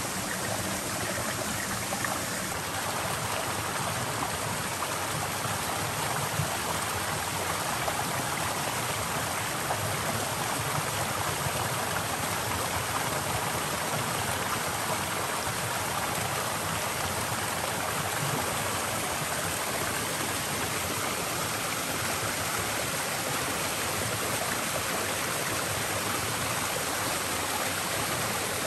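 Steady rush of a small forest stream falling between boulders as a little waterfall into a rocky pool.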